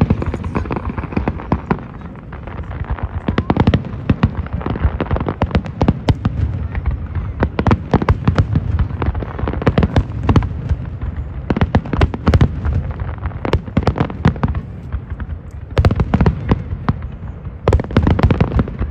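Fireworks display: a dense barrage of shell bursts, many bangs a second, over a continuous low rumble.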